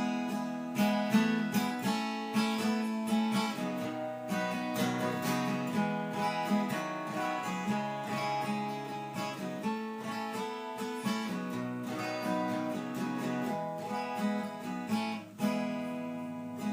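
Instrumental break of a country-style song: acoustic guitar picked and strummed in a steady rhythm, with no singing.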